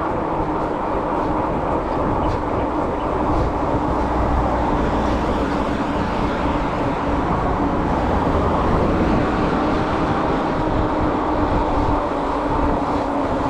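Fiido M1 Pro fat-tyre electric bike cruising on asphalt at about 27 km/h: a steady rush of wind on the microphone and tyre rumble, with a faint steady hum from the hub motor.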